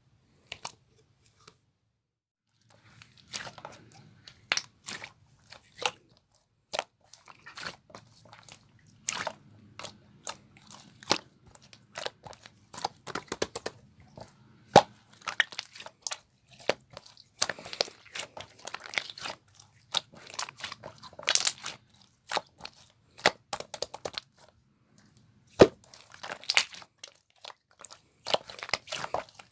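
Clear slime being squished and stretched by hand, giving off dense, irregular sharp clicks and pops. A few clicks come in the first second or two, then they run almost without pause from about three seconds in.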